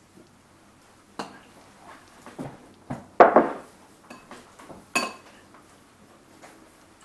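Serving spoon scooping carrots from a bowl, knocking and scraping against the bowl and plates: a few sharp clinks, a louder scrape about three seconds in, and a clink that rings briefly about five seconds in.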